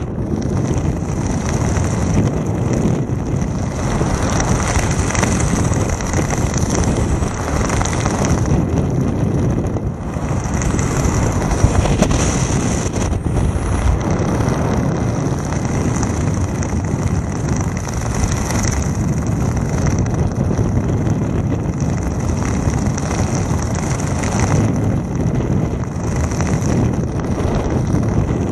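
Wind rushing over a camera microphone during parachute canopy flight: a loud, steady rush of airflow that swells and eases slightly.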